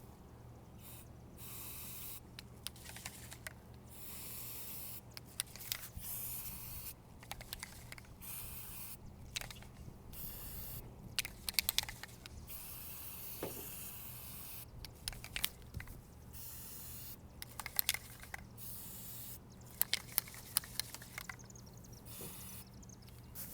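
Aerosol can of Gorilla Waterproof Patch & Seal rubberized sealant spray giving about a dozen short hissing bursts of a second or so each, with pauses and light clicks between them.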